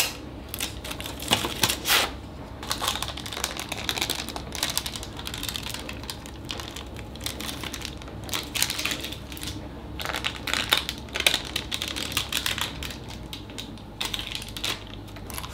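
Baking parchment rustling and crinkling as it is peeled off a cake, with light clicks and clatters of a metal cake tin on a wire cooling rack.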